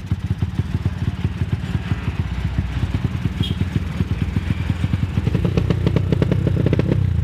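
Honda Tiger single-cylinder four-stroke engine in a Honda CB, fitted with a PWK Sudco 35 Airstrike carburettor and a modified camshaft, running with a rapid, steady exhaust beat. About five seconds in it picks up revs and grows louder.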